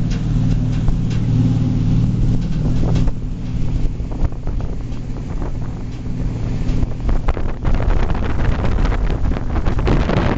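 Speed ferry's engines droning steadily, with heavy wind buffeting on the microphone. The engine hum is strongest for the first few seconds, and the wind gusts grow denser and louder in the second half.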